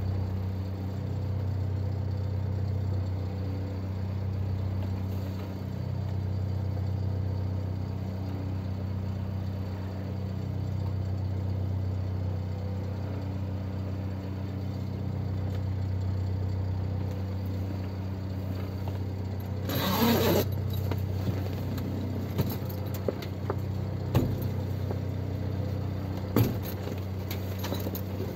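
Steel motorboat's engine running steadily under way, a constant low drone heard from the helm. About twenty seconds in there is a short rushing burst, and a few sharp clattering knocks come near the end.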